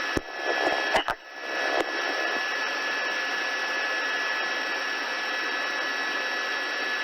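Police two-way radio channel hissing with static, with a couple of sharp key clicks and faint broken traces in the first two seconds, then a steady hiss with a faint steady whine.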